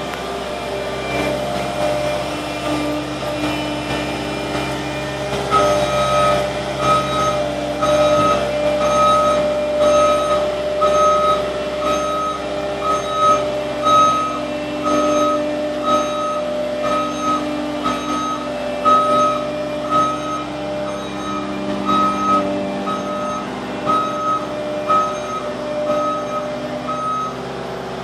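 Skid steer loader's engine running under load as it works dirt, with its backup alarm beeping steadily from about five seconds in while it reverses.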